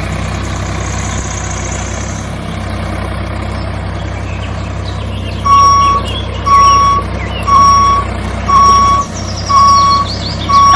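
A steady low engine drone, joined about halfway in by a reversing alarm beeping once a second, each beep about half a second long, as the vehicle backs up.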